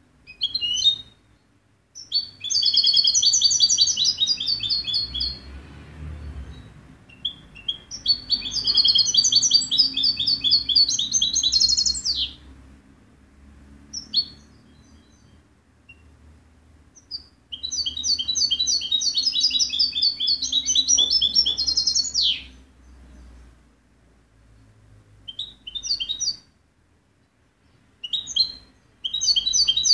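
European goldfinch singing: three long phrases of rapid, high twittering notes, each about four to five seconds long, with short snatches of song in the pauses between them. Some phrases end in a quick downward slide.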